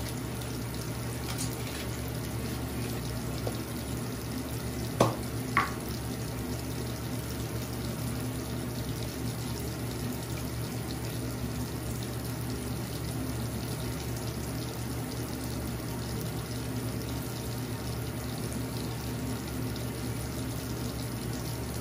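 Bathroom sink faucet running steadily, with two brief clicks a little after five seconds in.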